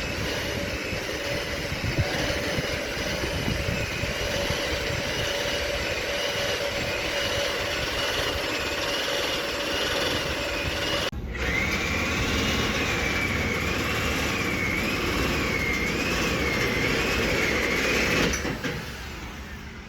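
Heavy construction machinery running steadily, with a high whine that wavers up and down in pitch about once a second. The sound cuts off abruptly about halfway through and is replaced by a slightly louder run of the same kind, which dies down near the end.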